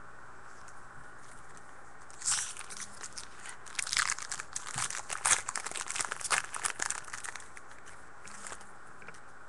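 A trading-card pack's foil wrapper being torn open and crumpled, a dense run of crackling and crinkling that starts about two seconds in and dies away near the end.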